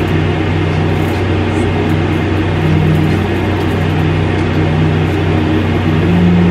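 Window air conditioner running: a steady low hum over an even rushing noise.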